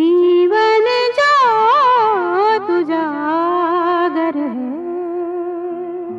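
A song: a solo singer sings a long, ornamented phrase that winds up and down, then settles on a long held note that fades near the end.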